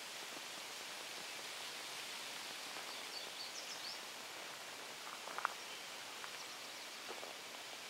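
Steady outdoor hiss of open-air ambience, with a few faint high chirps about three seconds in and one sharp click a little past the middle.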